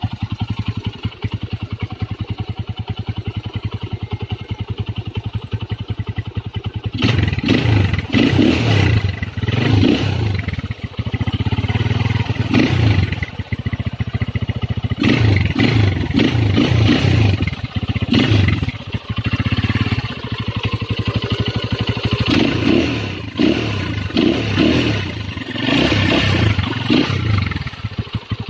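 Honda GL Pro motorcycle engine idling with a steady rapid beat, then, about seven seconds in, revved in a series of short throttle blips that rise and fall repeatedly as the engine is warmed up.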